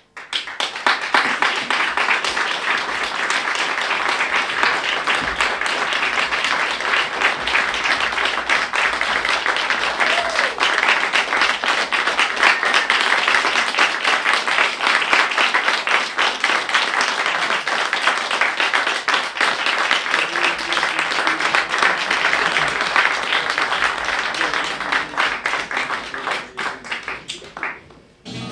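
Theatre audience applauding: dense clapping that starts suddenly and fades out near the end.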